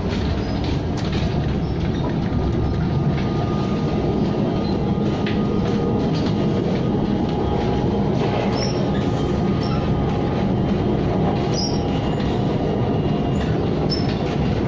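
KTM ETS electric train running along the track: a steady, dense rumble of wheels on rail, with faint ticks and a thin steady tone above it.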